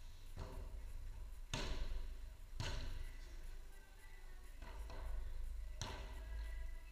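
Footvolley ball struck by players during a rally: about four sharp thuds a second or more apart, each echoing in a large hall, over a low steady hum.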